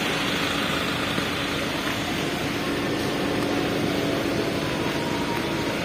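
A steady machine hum: one constant low tone held over an even hiss, unchanging throughout.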